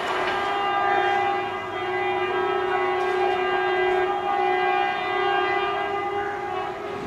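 Horn of an approaching WCAM2P electric locomotive sounding one long, steady blast of about seven seconds.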